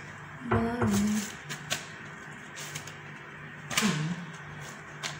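A woman's short wordless vocal sounds, one held briefly about half a second in and one falling in pitch near four seconds, with a few light clicks and taps in between over a steady low hum.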